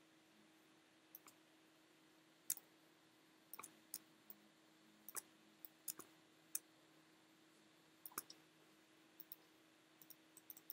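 About twenty sharp, irregularly spaced clicks of a computer mouse and keyboard being worked, over a faint steady hum.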